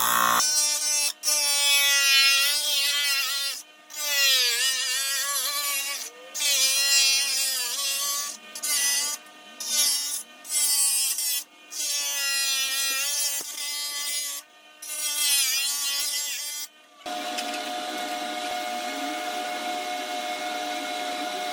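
Small high-speed power tool running in repeated spells, its high whine dipping and recovering in pitch as it bites into the work, with several sudden breaks. About three quarters of the way in it gives way to a steadier motor hum with a hiss.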